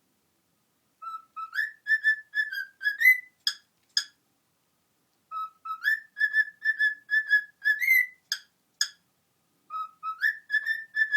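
Cockatiel whistling the same short tune of quick notes three times over, each run climbing to a higher note near its end, with a few sharp clicks between the runs.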